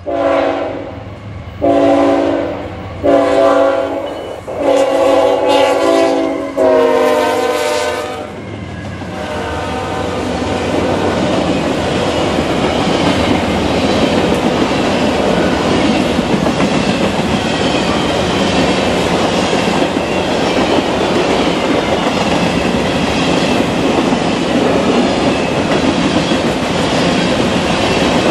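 A CSX GE ET44AH freight locomotive's Nathan K5HLL five-chime air horn sounding five blasts over about eight seconds as the train approaches. Then a long train of empty covered hopper cars rolls past with steady wheel clatter on the rails.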